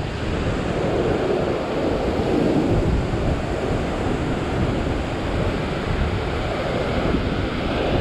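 Heavy ocean surf breaking and churning against a rocky shore ledge, a continuous steady wash.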